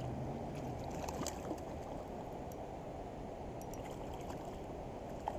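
Steady rushing of creek water, with a few faint clicks.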